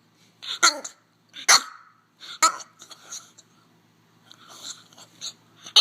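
French bulldog making a string of strange short vocal noises, about half a dozen in a few seconds, some with a pitched, wavering tone: the weirdest noise.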